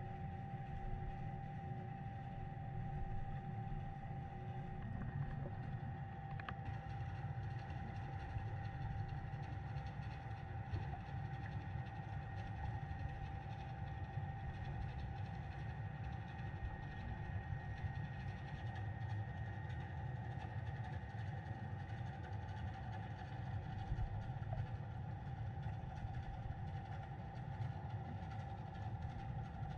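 Muffled underwater sound from a GoPro in its waterproof housing: a steady low rumble with faint, steady high whining tones over it.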